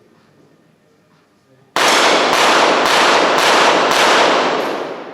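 Five rapid .22 Short rapid-fire pistol shots, about half a second apart, fired as one series at five targets. Each shot rings on into the next, and the ringing fades away near the end.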